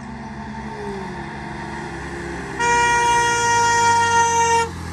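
A vehicle horn blows one steady blast for about two seconds, starting a little past halfway. Under it runs the hum of a road vehicle's engine, falling in pitch early on.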